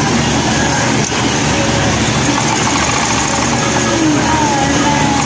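Industrial sewing machines running on a garment factory floor, a steady, unbroken machine drone.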